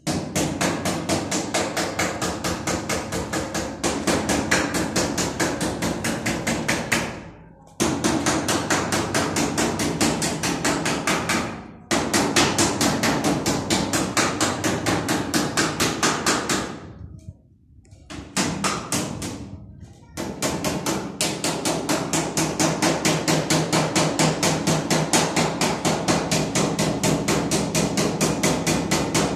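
Hammer blows on a thin iron sheet being bent, struck rapidly at about four strikes a second in several runs with short pauses between them.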